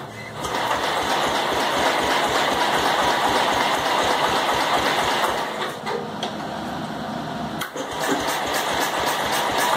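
The 1966 Gilson 1200 Commander's engine cranking over with a rapid, even rhythm, trying to fire but not starting, primed with a dribble of gas in the carburetor after its points were cleaned. The cranking stops briefly near the end and then starts again.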